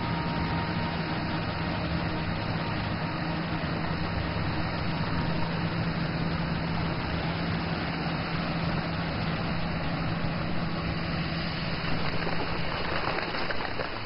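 A dredging discharge pipe pumping out sand-laden water: a steady low engine hum over a broad rushing noise. The hum fades near the end.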